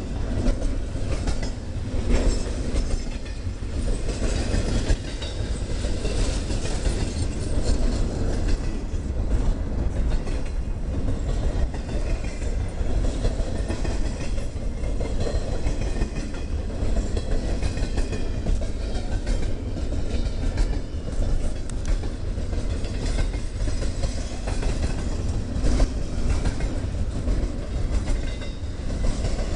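Freight train rolling past, a steady rumble with the clacking of wheels over rail joints.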